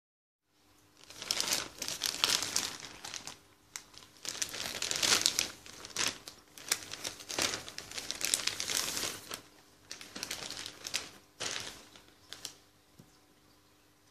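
Plastic shop bag crinkling and rustling in irregular bursts as it is handled and the tablet box is pulled out of it; the rustling stops near the end.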